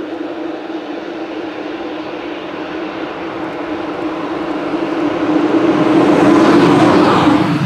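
A Rhaetian Railway Ge 4/4 II electric locomotive hauling a train of coaches approaches and passes. Its steady electrical hum and the wheel noise grow louder, peak about six to seven seconds in, and the hum drops slightly in pitch near the end as the locomotive goes by.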